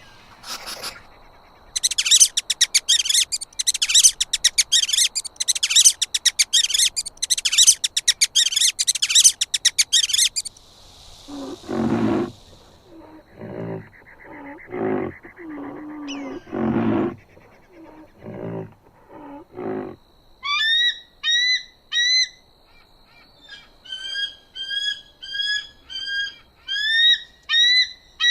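A series of animal calls. From about 2 to 10 seconds there is rapid high-pitched chattering. From about 11 to 20 seconds come low grunting calls. From about 20 seconds on there are repeated short, rising chirps.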